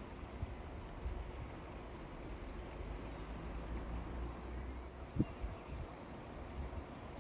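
Low steady rumble of rail-yard ambience with distant diesel locomotives standing, one sharp knock about five seconds in, and faint bird chirps.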